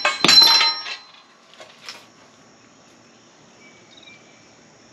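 A sharp metallic clank that rings on briefly, from steel tools and parts being handled while a wheel hub is pressed into its bearing, followed by a couple of faint clicks. Faint insect chirping runs underneath.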